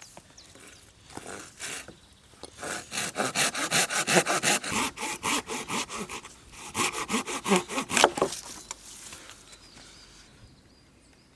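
Hand saw cutting through wood in quick back-and-forth strokes, about four a second, in two runs with a short pause between them.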